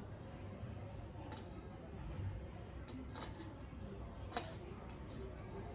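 Light clicks and taps of metal and hard plastic, a handful at irregular intervals, the sharpest about four and a half seconds in, as a motorcycle backrest bracket is handled and fitted onto the Yezdi Adventure's rear top rack.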